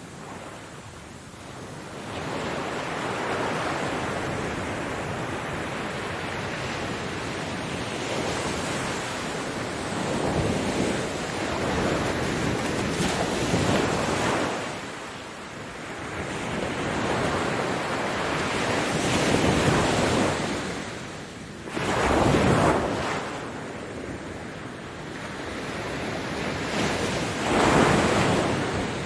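Ocean surf breaking on a beach: a continuous wash of noise that swells and ebbs as wave after wave comes in. It rises about two seconds in, with the loudest breakers a little past two-thirds of the way through and again near the end.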